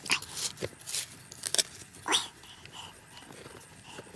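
A small hand trowel scraping and flicking loose soil, making a run of short scrapes and knocks. About halfway through there is one short high squeak.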